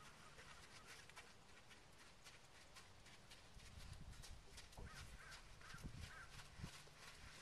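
Faint outdoor ambience, with a few soft low thuds in the second half from a horse's hooves trotting on arena sand.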